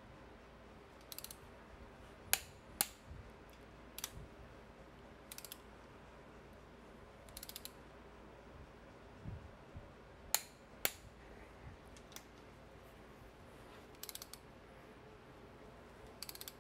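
Click-type torque wrench ratcheting in short bursts as it tightens intake manifold bolts on a Chevy 350 small-block. Twice there is a pair of louder, sharp clicks about half a second apart: the wrench clicking over as a bolt reaches its set torque.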